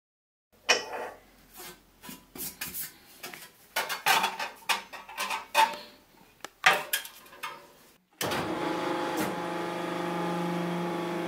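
Steel sheet, die and punch being set down and shifted on the steel bed of a press: irregular knocks, clinks and scrapes. About eight seconds in, the press's motor starts suddenly and runs with a steady hum.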